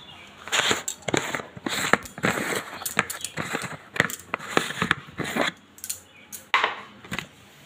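Irregular clicks, crackles and rustling from a plastic biscuit container being opened and handled.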